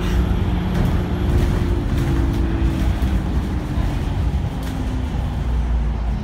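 Alexander Dennis Enviro500 MMC double-deck bus under way, heard from inside the lower deck: a steady engine drone with a transmission whine. The whine's pitch sinks slowly and steps down about four and a half seconds in.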